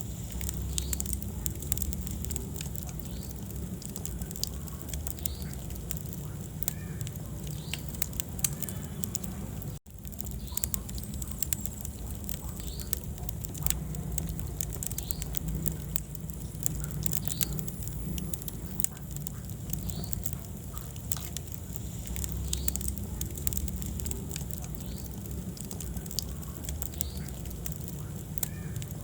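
Wood fire burning in a fireplace: a steady low rumble of flames with constant irregular crackles and pops from the logs. The sound drops out for a split second about ten seconds in.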